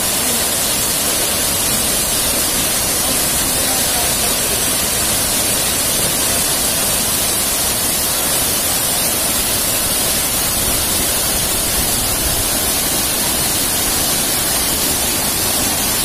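Steady rush of a tall waterfall plunging into a rocky pool: a loud, even hiss with no breaks.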